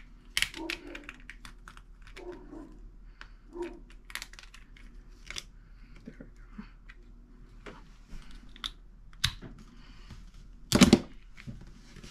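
Small plastic clicks and taps from a bottle of cube lube and its cap being handled and opened, with a louder knock about eleven seconds in.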